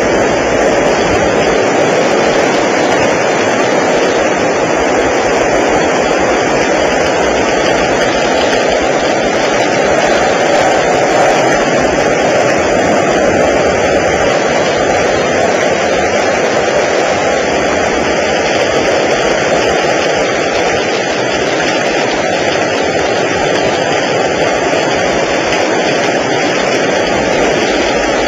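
Strong wind and heavy rain of a tornado storm, a loud, steady rushing noise that holds even without let-up.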